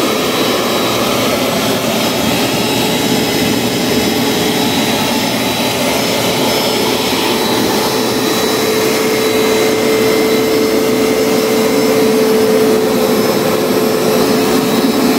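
Bissell ProHeat Pet Turbo upright carpet cleaner running on carpet: its motor drones steadily with a constant mid-pitched whine.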